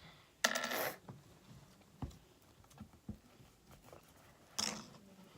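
Hands working Play-Doh and lotion slime: two short rustling squishes, about half a second and four and a half seconds in, with a few light taps between.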